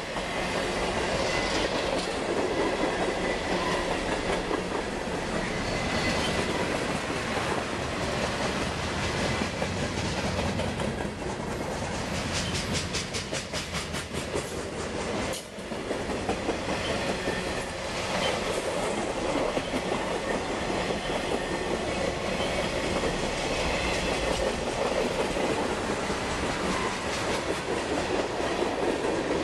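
Freight cars of a long mixed freight train rolling steadily past, with the continuous rumble of the cars and wheels clacking over rail joints. A quick run of rapid clacks comes about twelve seconds in.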